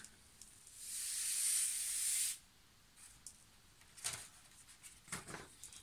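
Pink chalk-tinted salt pouring off a folded sheet of paper into a small glass jar: an even hiss that swells in and runs for about two seconds, then stops. A few faint ticks follow.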